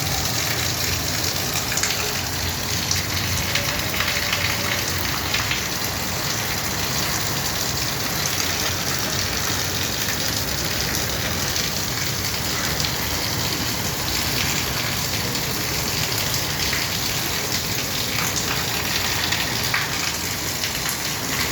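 Steady rain falling, an even hiss with many sharp drop ticks scattered through it.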